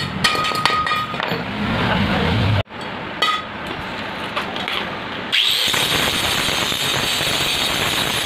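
Chipping hammer tapping a fresh steel pipe weld, a few sharp ringing metal strikes that knock off the slag. About five seconds in, an angle grinder starts grinding the weld with a steady high whine.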